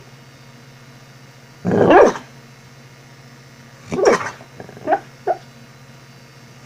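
A sleeping dog barking in its sleep as it dreams: two short bursts of barks about two seconds apart, then two brief yips.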